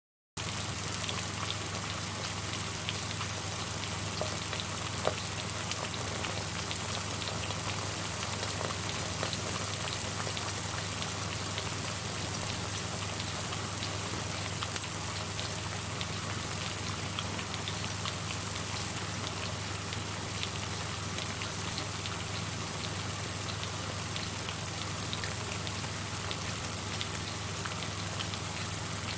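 Food deep frying in hot oil: a steady, dense sizzle full of fine crackles that starts abruptly just after the beginning and holds even throughout, with a low steady hum underneath.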